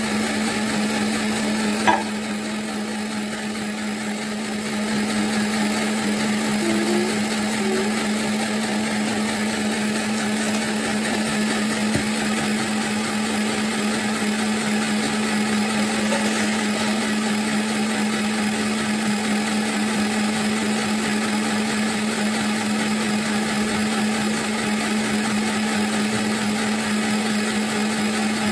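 Wansa countertop blender running steadily, its motor humming as it blends a cream mixture. There is a brief sharp knock about two seconds in.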